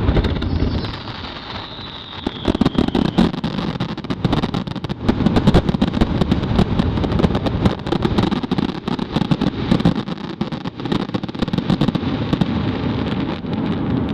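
Fireworks finale barrage: a dense run of rapid bangs and crackling over a low rumble, with a high whistle falling in pitch in the first few seconds.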